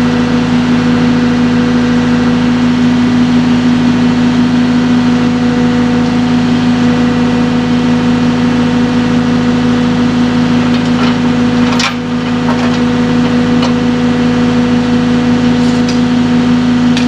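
Excavator's diesel engine running at a steady, held-down speed with an unchanging pitch, and a few short clicks about twelve seconds in and again near the end.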